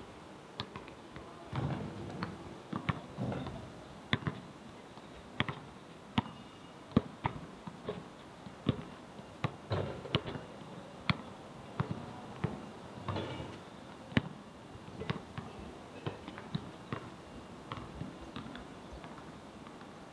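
A string of sharp, irregular knocks, about one or two a second, some louder than others.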